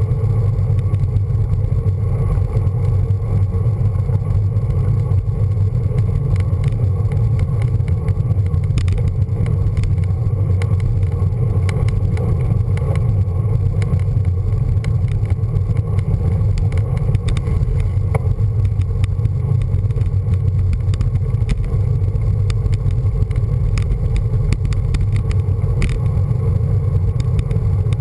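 Wind and road rumble on the microphone of a bicycle's handlebar-mounted camera while riding: a steady, heavy low rumble at an even level, with a few faint ticks from the bike.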